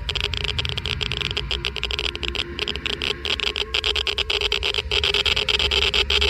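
Geiger–Müller counter crackling with fast, irregular clicks, each click an ionizing particle counted, over a steady hum.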